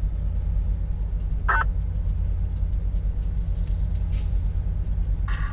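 Steady low engine rumble, with one short high-pitched tone about a second and a half in.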